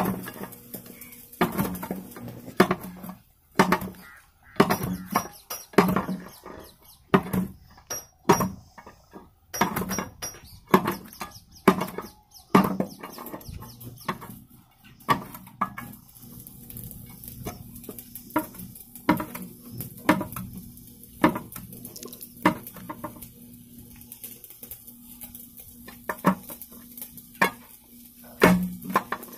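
Steel pry bar knocking and scraping against the gears inside an oil expeller head as they are levered out: irregular metal clanks and clinks, one or two a second, growing sparser in the second half.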